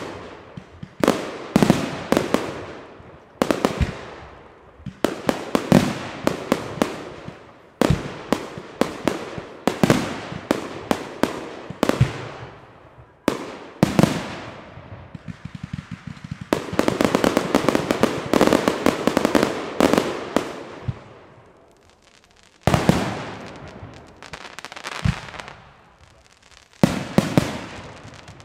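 Aerial firework shells bursting: sharp bangs every second or two, each dying away in a rumbling echo, with a dense run of rapid-fire bangs just past the middle.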